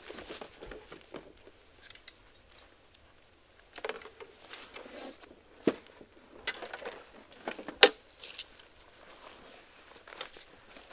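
Footsteps through dry grass and leaves, with fishing gear being handled and set down: rustling broken by scattered clicks and knocks, the sharpest a click about eight seconds in.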